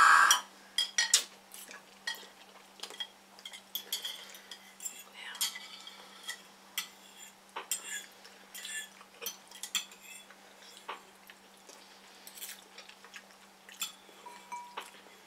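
Eating utensils clicking and scraping against bowls of noodles in short, irregular clinks, with a louder rushing sound right at the start.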